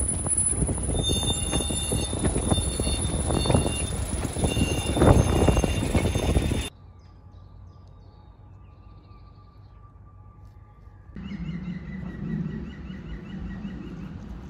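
Heavy wind buffeting on the microphone over a narrow-gauge diesel train pulling away, cut off suddenly about halfway through. Then quiet woodland with birdsong, and from about three-quarters of the way in the low, steady hum of the small diesel locomotive approaching.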